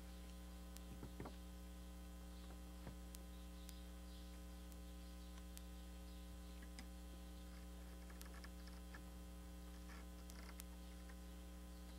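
Steady low electrical mains hum, with a few faint scattered clicks from hands working a screen frame and its clamps.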